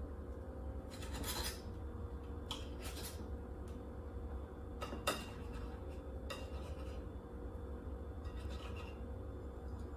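Knife and fork cutting through baked eggplant, scraping against the plate in a handful of short strokes, with a sharper clink of metal on the plate about five seconds in.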